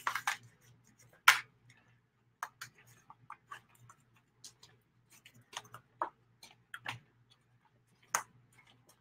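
Irregular light clicks and taps from handling the painting and its materials on the worktable while trying to get paint drips to run, over a faint steady low hum. Two clicks stand out as louder, about a second in and near the end.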